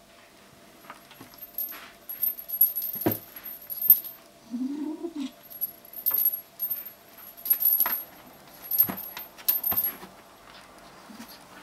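Repeated rattling, rustling and thumping as a kitten tussles with and drags a plush toy on a stick across the floor. About halfway there is one short, low owl-like hoot from the American Curl kitten, its warning sound when it feels threatened over the toy.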